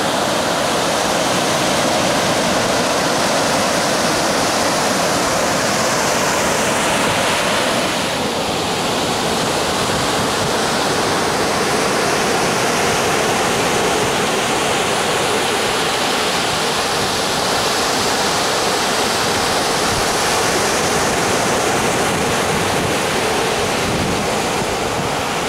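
Sea surf breaking and washing up a sandy beach: a continuous rushing hiss that swells and eases with the waves.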